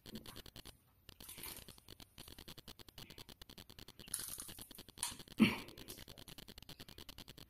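Faint crackling and rustling of roasted seaweed snack being chewed and handled, with one sharp knock about five and a half seconds in.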